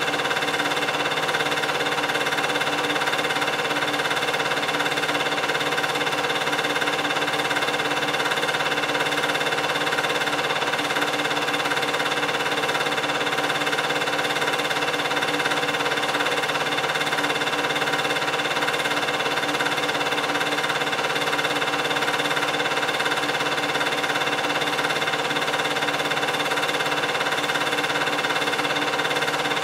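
8mm film projector running: a steady mechanical whir with several fixed tones, even in level with no change.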